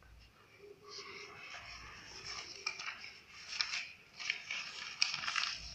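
Paper pages of an exercise book rustling and crackling as they are flipped and handled, with a few sharper crackles in the second half.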